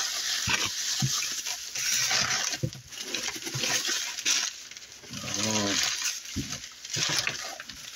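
Packing material rustling and crinkling as it is pulled out of a cardboard box by hand, with a brief murmured voice a little past halfway.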